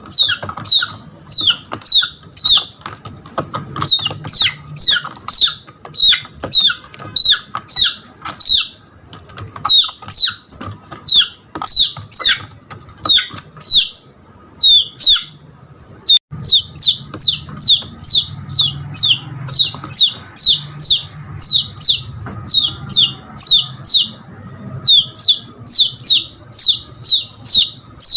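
Red junglefowl chick's distress peeping: rapid, high-pitched calls, each a short falling note, about three a second in runs with brief pauses. This is the crying call of a lost chick calling for its mother, the sound used as a lure to bring in the hen.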